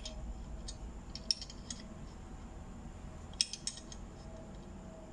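Light metallic clicks and clinks of an open-end spanner on the hub nut of a cast-iron treadle sewing machine wheel as it is worked loose: a few scattered ticks, with a quick cluster of three about three and a half seconds in.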